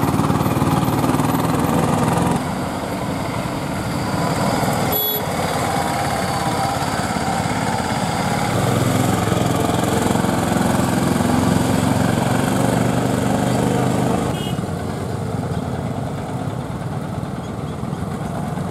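Small auto-rickshaw engines running steadily as passenger-laden three-wheelers labour round a sharp bend, mixed with the running of passing vehicles. The overall sound drops in level at about two seconds and again at about fourteen seconds, with a brief sharp sound about five seconds in.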